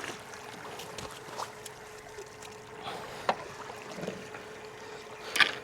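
Water lapping and trickling against a kayak's hull, with a faint steady hum and a few light clicks and knocks.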